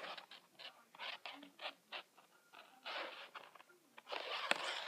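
Plastic lanyard lacing strands rustling and scraping against one another in short, irregular scratches as they are pulled over and under to braid the stitch.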